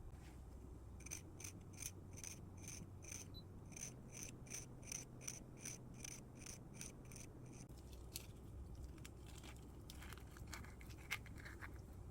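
A kitchen utensil striking a bowl in a steady rhythm, about three light clinks a second, each with a faint ring, then a few irregular clinks near the end, as when a mixture is whisked or mashed.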